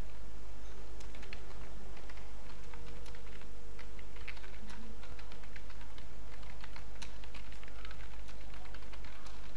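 Computer keyboard keys clicking in quick, irregular runs as text is typed, over a steady low hum.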